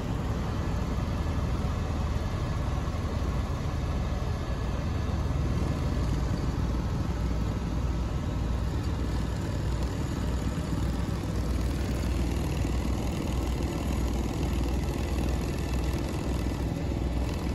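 Helicopter in flight heard from inside the cabin: a steady low drone of rotor and engine, with a faint steady whine above it.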